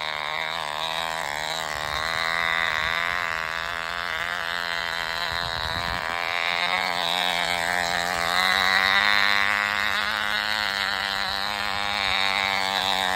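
Tiny model engine of a Cox Command Jeep running steadily at high revs, a high buzzing whine whose pitch wavers slightly as the jeep drives along.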